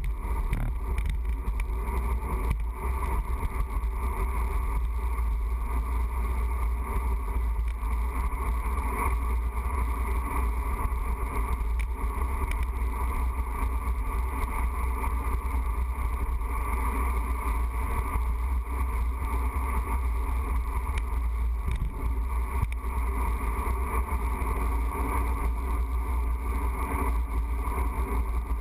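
Steady wind rush buffeting the microphone of a handlebar-mounted camera on a moving road bicycle, a deep low rumble over the hiss of tyres on pavement.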